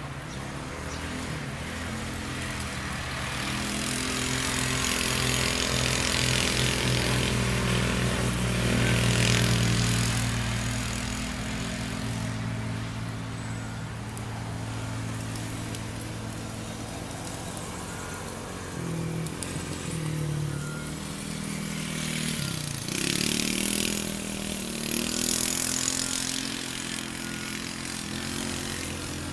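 Polaris RZR 170 youth buggy's small single-cylinder four-stroke engine running and revving up and down as it drives, with two spells of hiss, the louder rev about nine seconds in.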